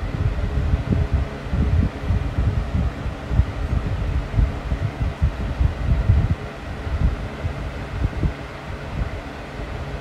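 Lasko 3723 Premium box fan running, a steady motor hum under the rush of its airflow. The air blast buffets the microphone in uneven low gusts.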